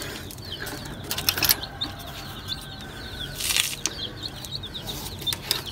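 Chicks peeping in many short, high chirps, with two brief rustling bursts, one just over a second in and one past the middle.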